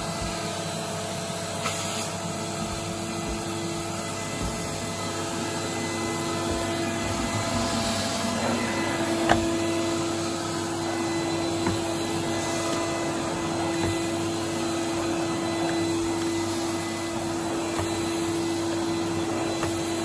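A 1991 Numatic Henry HVR200 vacuum cleaner with a 1000-watt motor, running steadily while its floor tool is pushed over carpet. Its steady hum carries a tone that grows a little stronger about halfway through, with one light knock about nine seconds in.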